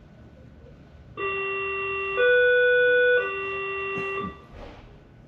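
Berlin S-Bahn class 481 door-closing warning signal: three steady electronic tones, low, higher, low, each about a second long, warning that the doors are about to close.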